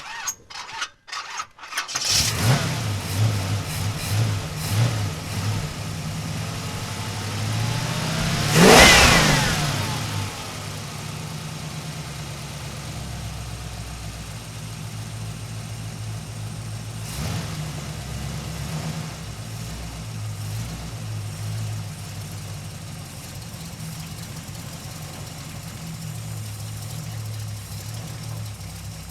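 Muscle car engine cranked by the starter for about two seconds, then catching and running unevenly with a few throttle blips. It is revved hard once about nine seconds in, then settles to a steady idle with one short blip near the middle.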